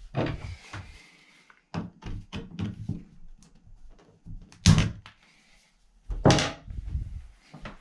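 Hand tools being worked and knocked at a shower valve and tub: a string of clicks and knocks, with two louder clunks about halfway through and again about two thirds of the way in.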